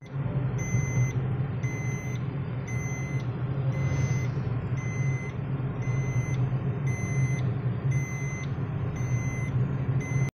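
Car engine and road noise heard inside the cabin as a steady low hum. A short electronic beep repeats evenly about every three quarters of a second throughout.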